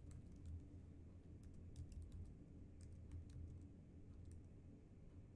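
Faint keystrokes on a computer keyboard: irregular clicks as a terminal command is typed, over a low steady hum.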